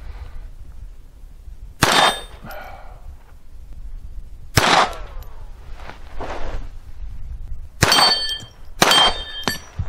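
Four shots from a Browning Buck Mark .22 Long Rifle pistol, spaced unevenly with the last two close together. Three of the shots are followed by the ringing clang of a hit steel plate target.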